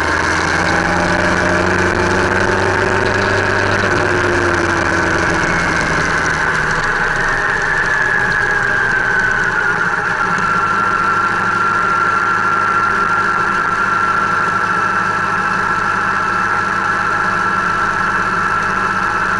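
Motorcycle engine running under way, heard from a camera on the moving bike, with steady wind and road rush. The engine pitch climbs over the first few seconds, eases off about eight seconds in, then holds steady.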